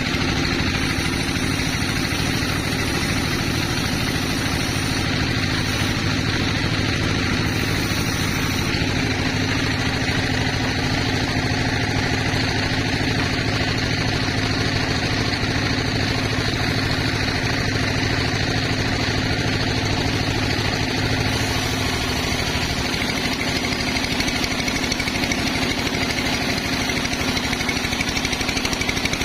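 Sawmill machinery driven by an engine, running steadily with a fast, even pulsing beat. A low hum in it drops away about three-quarters of the way through.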